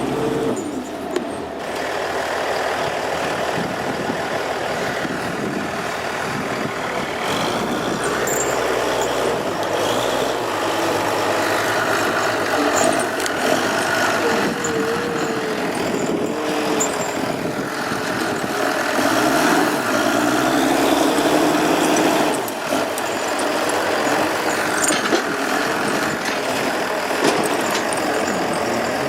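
Heavy diesel machinery running under load, the engine note wavering up and down as it works.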